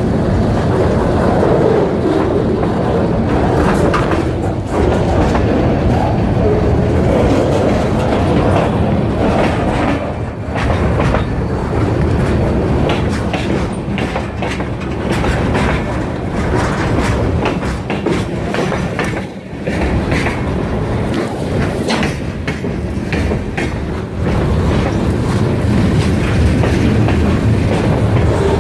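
Freight train rolling past, its wheels clacking steadily over the rail joints above a continuous low rumble.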